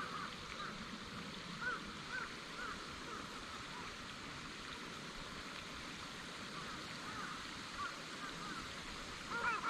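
Waterfowl calling: short rising-and-falling honks at scattered intervals, growing busier near the end, over the steady rush of the river.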